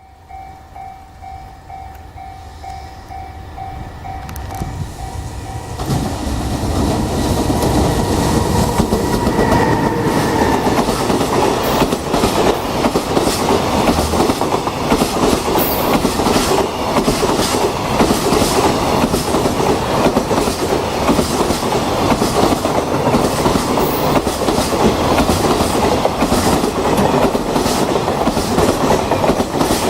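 Freight train approaching, growing louder over the first six seconds, then passing close by with a loud, continuous rumble and wheels clattering over rail joints. A faint, regularly pulsing tone sounds during the approach.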